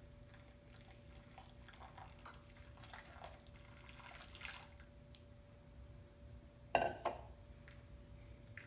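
Boiling water poured from a measuring cup into a bowl of cocoa powder while it is stirred: faint pouring and stirring sounds, with one brief louder sound about seven seconds in.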